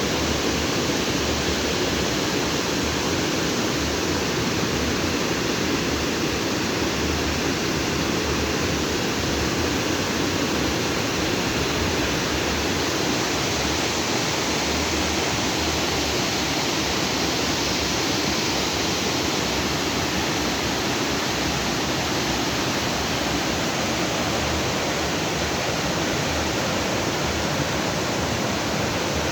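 Stream water rushing and splashing over rocks in a steady, unbroken stream.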